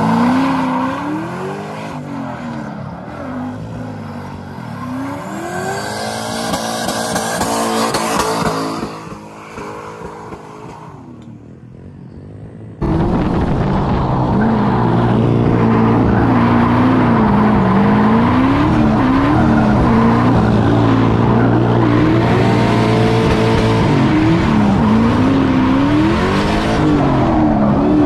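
Turbocharged Chevrolet Silverado drift truck's engine revving up and down over and over at high revs while drifting, with tires skidding. About halfway through it cuts suddenly to a much louder, closer sound from a mic mounted beside the wheel.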